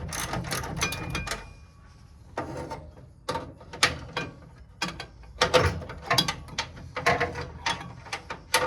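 Socket ratchet clicking as the half-inch bolts holding the radiator to its support are worked loose. A quick run of clicks stops about a second and a half in, then resumes in short, sharp runs.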